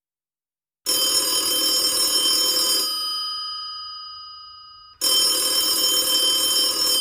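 Telephone bell ringing twice, each ring about two seconds long and followed by a fading ring-out.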